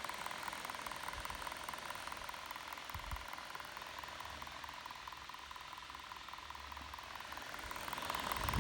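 Dell XPS 17 9700 laptop's GPU cooling fan running, a steady airy whir with a thin steady tone.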